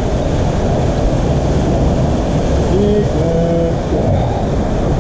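Loud, steady rush of ocean surf churning through a rocky gutter, with wind rumbling on the microphone.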